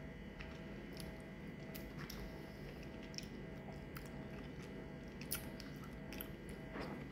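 Close mouth sounds of someone eating passion fruit pulp: soft wet chewing of the seedy pulp, with scattered small clicks and smacks.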